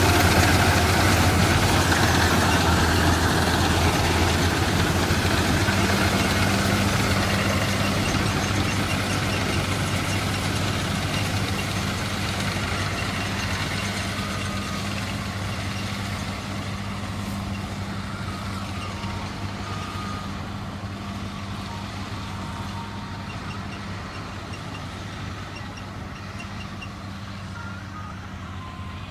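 Combine harvester's diesel engine and threshing machinery running steadily with a low, even hum, growing steadily fainter as the machine moves away.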